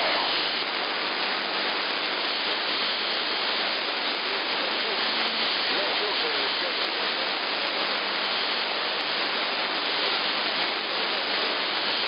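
AM radio receiver tuned to CB channel 11 (27.085 MHz) giving a steady rush of static, with faint, garbled voices of distant stations coming through the noise by skip.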